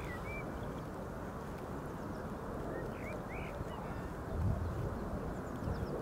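Steady outdoor background noise at a lake shore, with a few faint, short bird calls near the start and again about three seconds in.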